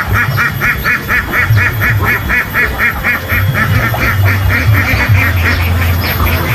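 Duck quacking in a fast, even run of about five quacks a second, fading after about four seconds, over a steady low rumble.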